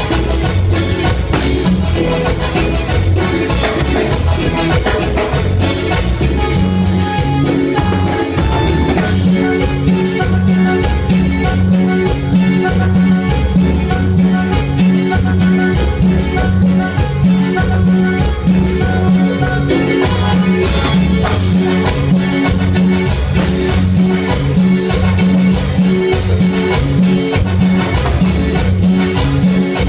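Live band playing Latin dance music, with an electronic keyboard over drums and a steady bass beat.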